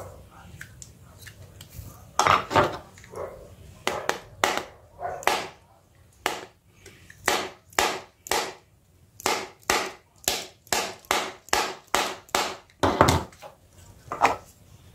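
A series of sharp knocks and clicks from hand tools and plastic phone parts during a smartphone teardown. The knocks are scattered at first, then come in a regular run of about two a second.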